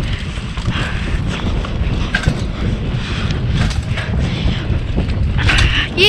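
Mountain bike ride down a dirt forest trail, heard from a camera on the rider: a steady rumble of wind buffeting and the tyres rolling, with scattered rattles and knocks from the bike over the rough ground and short hissing bursts, the loudest near the end.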